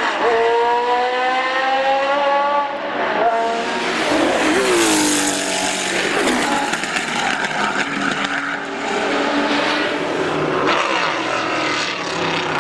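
Historic racing car engines at full throttle, pitch climbing with a quick upshift near the start and another about three seconds in. One car passes close by about five seconds in, its note falling away, and other cars' engines follow.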